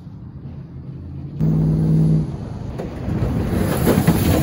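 Pickup truck engine revving hard as it spins donuts in loose sand. About a second and a half in, a loud, steady engine note holds for under a second, then a rushing noise builds up.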